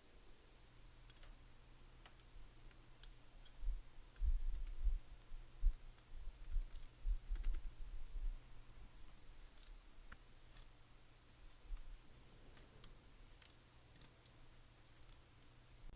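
Faint scattered clicks and low bumps of a mechanical keyboard circuit board being pressed and worked onto the switch pins through the plate. The bumps are busiest about four to eight seconds in.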